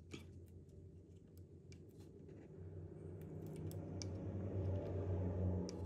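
Light scattered clicks and taps of small parts and tools being handled during a drone teardown, over a low hum that grows louder in the second half.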